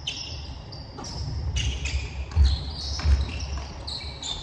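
Basketball bouncing on a hardwood gym floor, with sneakers squeaking as players move, in a large echoing hall. The ball thumps hardest twice, a little past the middle.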